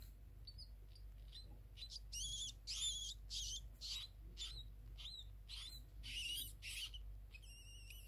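Rats squeaking: a run of short, high-pitched squeaks, about two a second, loudest in the middle of the stretch.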